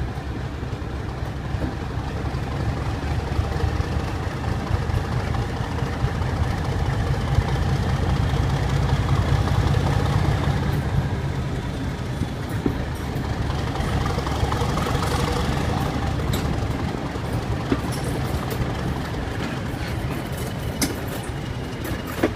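Class 31 diesel locomotive's English Electric V12 engine under load, a loud low running note that swells in the middle and eases off again, the thrash its fans come to hear. A run of sharp clicks comes in over the last third.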